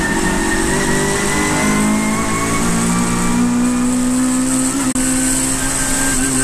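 Saloon race car's engine heard from inside the cockpit, accelerating hard with its pitch climbing steadily. There is one quick upshift about five seconds in, after which it pulls again.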